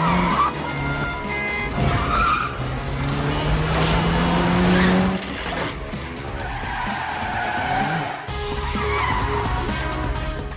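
Film car-chase soundtrack: a car engine revving hard and tyres squealing in several bursts, over background music. The engine note climbs about three seconds in.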